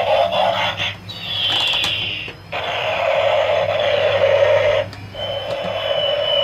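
Electronic sound effects from a battery-powered bump-and-go airplane toy's small speaker: a buzzy, warbling electronic sound with a falling whistle about a second in and another long falling tone near the end, broken twice by brief gaps.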